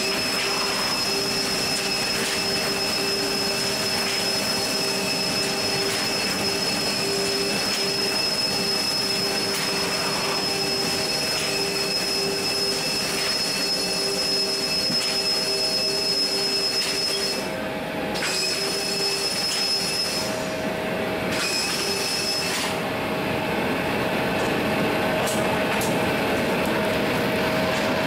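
Steady machinery hum and whine inside a freighter aircraft's cargo hold, several high steady tones over a noisy drone, with the higher tones dropping out briefly a few times in the second half.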